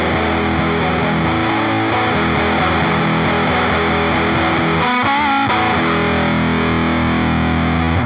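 Electric guitar played through a Supercool 77 Fuzz Blender fuzz pedal: sustained fuzz-distorted notes and chords, with a few bent, wavering notes about five seconds in.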